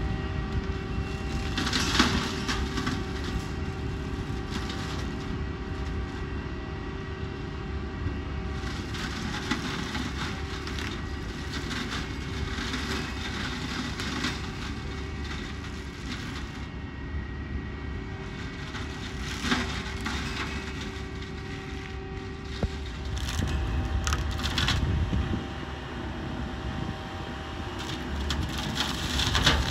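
Hedge cutter's spinning flail head on a tractor reach arm (McConnell 8085tt on a Fendt 716 Vario) flailing through hedge and tree branches. The machinery keeps up a steady whine, broken by sharp cracks and splintering of wood several times as branches are cut.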